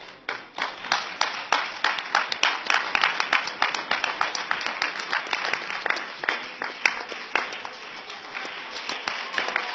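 Audience applauding: many hands clapping in a dense, irregular patter that starts suddenly, thins a little about eight seconds in and picks up again near the end.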